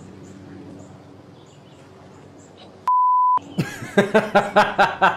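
A single steady high-pitched censor bleep of about half a second, about three seconds in, blanking out everything else. It is followed near the end by a man laughing in quick repeated bursts.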